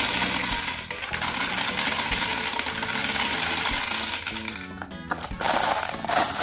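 Glass marbles clattering and rattling as they pour from a plastic tub down the hopper into the plastic drum of a Bruder toy cement mixer truck, easing off after about four seconds; near the end, a fresh rattle of marbles clinking together as the tub is scooped through a bowl of marbles. Background music plays throughout.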